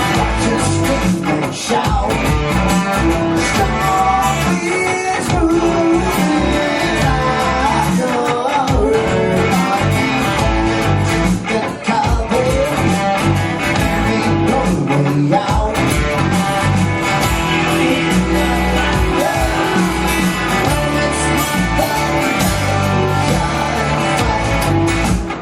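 A rock song with guitar and a singing voice.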